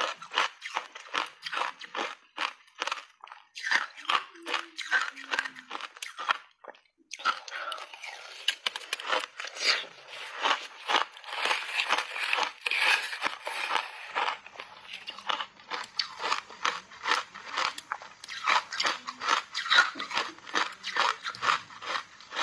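Close-miked crunching of shaved ice coated in matcha powder as it is bitten and chewed, about three or four crisp crunches a second. It pauses briefly about six and a half seconds in, then turns into denser, almost continuous crunching for several seconds before settling back into separate crunches.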